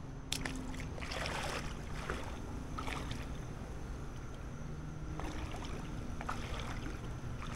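Irregular sloshing splashes of a person wading through shallow water and reaching into it, over a steady low rumble of wind.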